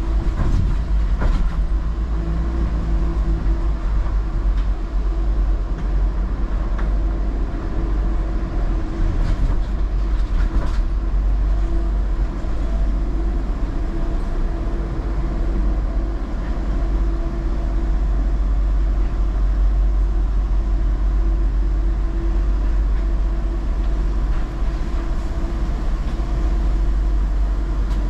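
A car rolling slowly through the Eurotunnel shuttle's carriages, heard as a steady low rumble with a constant hum. A few sharp knocks come about a second in and again around nine to eleven seconds in.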